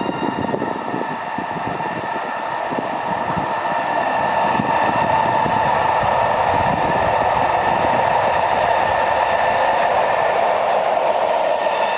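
Freight train passing with a loud, steady high screech from Koki 105 container flatcars, over wheel clatter and rumble that fade after the first few seconds. The screech, which the uploader takes for a friction noise, grows louder about four seconds in.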